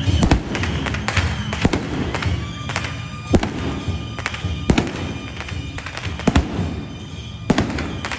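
Firecrackers going off during a temple procession: scattered sharp bangs, about six loud ones a second or so apart, among smaller crackles, over steady music.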